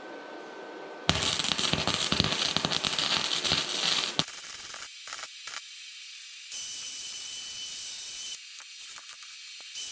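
Electric welding arc crackling in bursts: a loud crackle of about three seconds starting a second in, then shorter bursts of higher, hissier sizzle that start and stop abruptly as the trigger is pulled and released.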